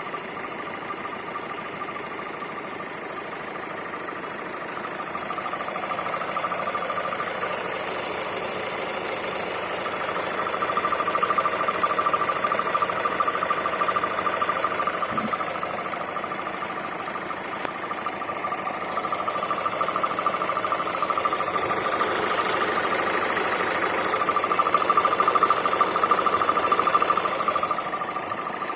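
Hyundai i40 CRDi common-rail diesel engine running, with a steady whine that swells louder twice: the weird noise the owner is recording, its cause unknown.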